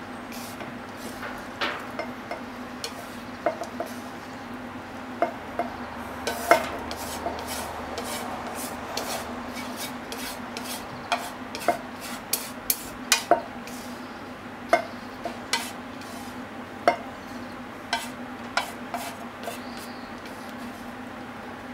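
A utensil scraping and clicking against a frying pan as stir-fried bean sprouts and minced chicken are pushed out into a bowl. The sharp clicks and scrapes come irregularly throughout, over a steady hum.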